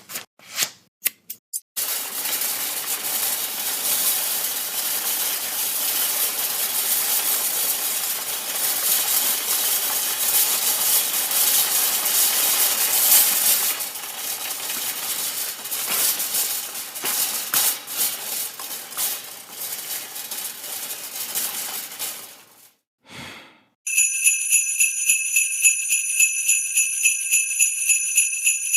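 A run of cartoon sound effects. First a few quick clicks, then a long dense jingling, jangling clatter like shaken bells. After a brief gap comes a short separate sound, then a rapidly pulsing high electronic ring of several steady tones, like a bell or alarm.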